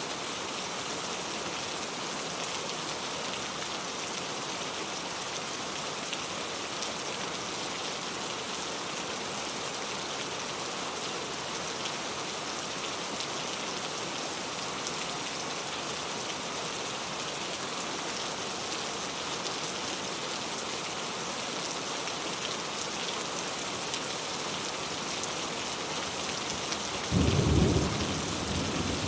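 Steady rain falling, an even hiss, with a short loud clap of thunder about two seconds before the end that dies away over a second or so.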